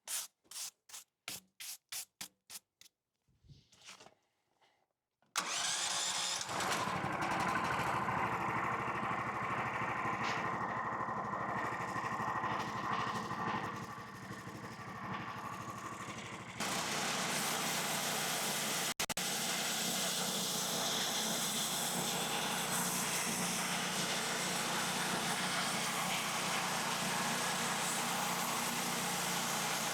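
A quick series of brushing strokes on a log. About five seconds in, the Mech Maxx sawmill's gas engine starts and runs steadily, settling into an even, slightly different running sound about 16 seconds in.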